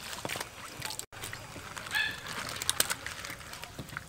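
Water sloshing and splashing in a metal basin as vegetables are washed by hand, with scattered small splashes and clicks. A brief high-pitched call sounds about two seconds in, and the sound cuts out for an instant about a second in.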